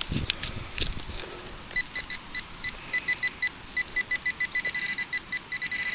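Metal-detecting pinpointer beeping in short pulses on one high pitch, the beeps quickening and nearly running together near the end as it closes in on a target in a dug soil plug. A few soft clicks of soil handling come in the first second.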